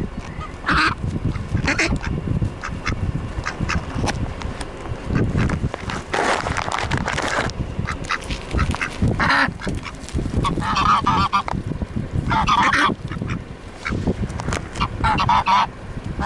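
Domestic geese and mallard ducks calling: about seven loud honks and quacks at irregular intervals, the longest about six seconds in.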